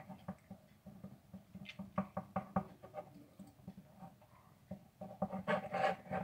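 A stirring stick knocking and scraping against the sides of a small plastic container while it mixes a thick slime mixture of glue, shaving foam and baking soda. The clicks are irregular, with a louder, denser run of knocks near the end.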